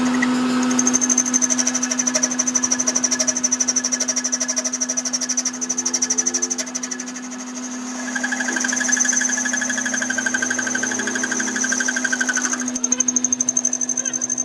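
A workshop machine running steadily, with a constant hum, a rapid even ticking and a high whine that changes pitch a couple of times.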